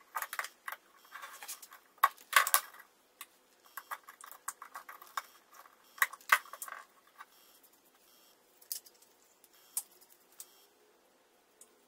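Steel and cast-iron parts of a bench plane clicking, clinking and scraping together as the blade assembly is fitted and a screw is turned with a screwdriver. The clinks are busiest in the first few seconds, come again in a cluster about six seconds in, and thin out toward the end.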